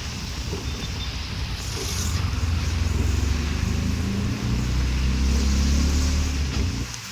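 Heavy rain falling, under a steady low rumble that swells between about three and six seconds in and drops off sharply near the end.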